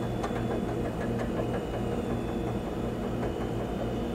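A steady low hum with no change or break, the kind of background drone a fan or air handler makes.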